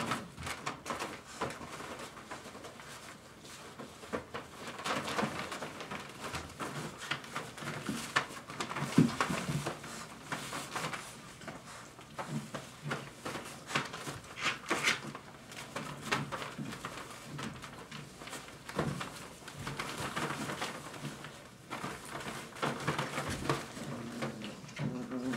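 Five-week-old Dogo Argentino puppies shuffling about in shredded paper bedding, with irregular rustling and scrabbling and now and then a soft puppy grunt or whine.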